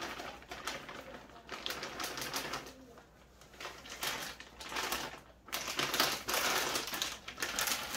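Plastic spice bag crinkling and rustling as it is handled, tipped over a bowl and folded shut, in several uneven bursts.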